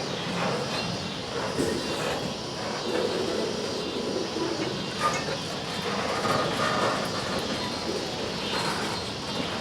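Freight train moving on the track: a steady rumble and rail noise with no clear beat.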